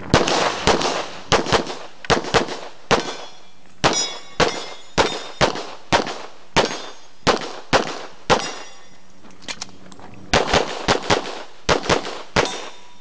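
Rapid pistol fire from a Limited division competitor running a stage: about two dozen shots, often in quick pairs, with a pause of nearly two seconds about two-thirds of the way through. Some hits ring on steel targets.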